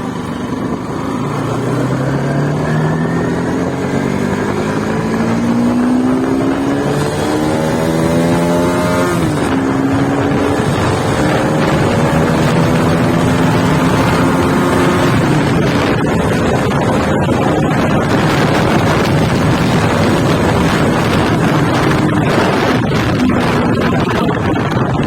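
Bajaj Pulsar motorcycle's single-cylinder engine and exhaust under way, pitch climbing as it accelerates, dropping sharply at a gear change about nine seconds in, then rising again and settling into a steady cruise. Wind noise on the microphone.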